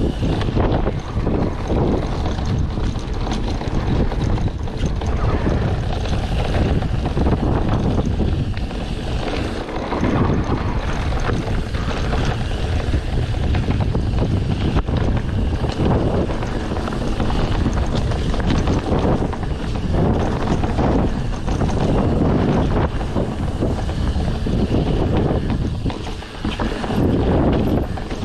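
Wind buffeting the microphone of a camera riding along on a mountain bike, a heavy rumbling rush that rises and falls, with the bike's rolling noise mixed in.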